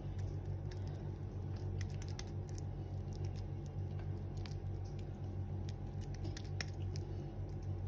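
Raw chicken mince being pressed and patted into a patty between wet hands: soft sticky squelches and scattered small clicks, over a steady low hum.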